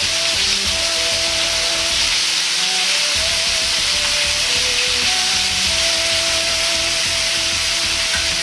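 Pieces of chicken thigh sizzling steadily in hot oil in a wok as they sear, with a light melody of background music over the sizzle.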